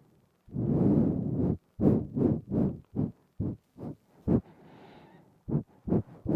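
Nasal breathing right up against a binaural microphone: one long exhale, then a run of short, quick puffs through the nose. A softer inhale comes about halfway through, and more quick puffs follow near the end.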